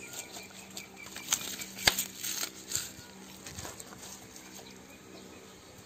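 Hands squeezing and handling onion leeks and loose garlic and shallots inside a pig's belly cavity: scattered crackles and sharp clicks, thickest in the first three seconds, then quieter. Faint insects chirp steadily underneath.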